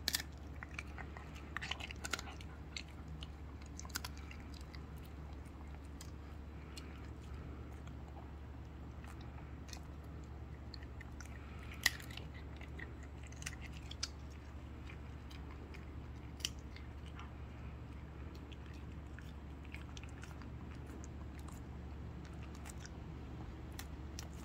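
Shih Tzu biting and chewing a hard biscuit dog treat: sharp crunches come in a burst over the first few seconds and again around the middle, with a few single crunches between them.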